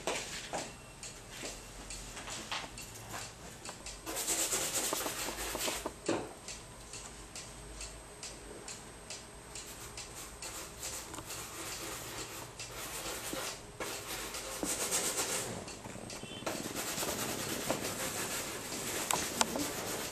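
A cat's fur scraping and rubbing on a wooden floor as it wriggles and rolls on its back, in several bouts a few seconds long, with scattered light knocks.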